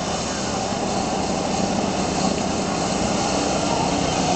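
Small go-kart engines running steadily as several karts lap the track together.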